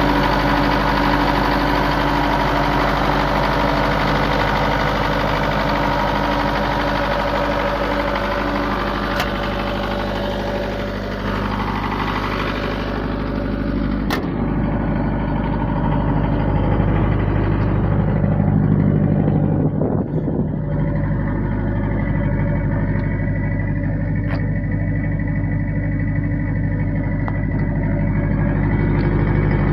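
Isuzu diesel engine of a silenced generator set running steadily at constant governed speed. About halfway through, the sound becomes duller as the high hiss drops away, with a sharp click at that moment.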